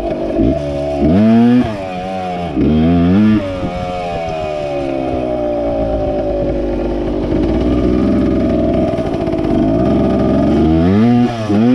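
MX 100 motorcycle engine revving up sharply twice in the first few seconds, then holding a long steady run whose pitch slowly sags and recovers. It revs up again near the end.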